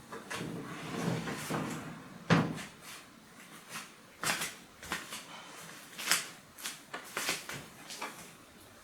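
Irregular knocks and clicks of cookware and utensils being handled in a kitchen, about a dozen sharp ones scattered through the stretch, the loudest about two seconds in.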